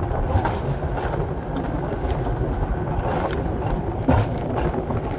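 Mountain coaster sled running fast down its steel rail track: a steady rumble of the wheels on the rails mixed with rushing air, with a few sharper knocks along the way.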